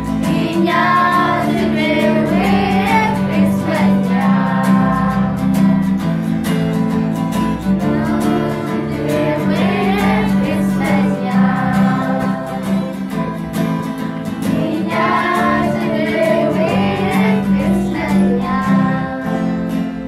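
A small group of girls singing together, accompanied by a strummed acoustic guitar. The singing ends just before the close, leaving the guitar.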